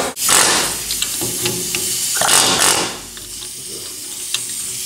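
Aerosol cleaner sprayed into an emptied differential housing in two short hissing bursts, about a second apart, with light metallic clicks between them.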